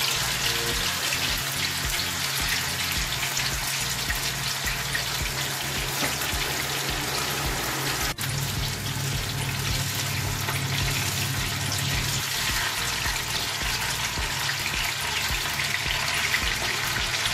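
Marinated chicken pieces sizzling as they shallow-fry in hot oil in a small pan: a steady, dense crackling sizzle, with a brief break about eight seconds in.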